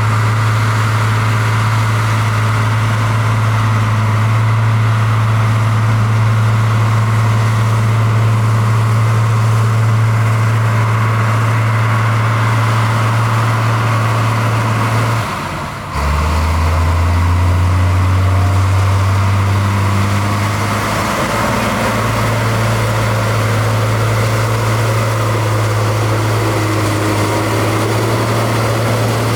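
Heavy engine of construction machinery running steadily with a strong low hum. About halfway through it dips briefly and drops to a lower pitch for about five seconds, then returns to its first pitch.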